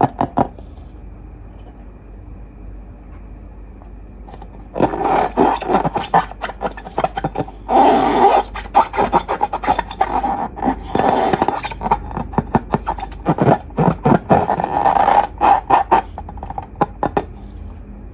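Slime being squished and stretched by hand. After a quiet start, dense runs of rapid wet crackles and clicks set in about five seconds in and go on in loud spells until shortly before the end.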